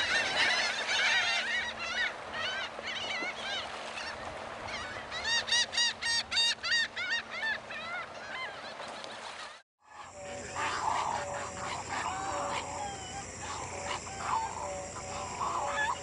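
Seabird colony of terns and gulls calling in a dense overlapping chorus, with a fast run of repeated calls about five seconds in. After a sudden break near ten seconds, a lower, slower series of honking calls follows.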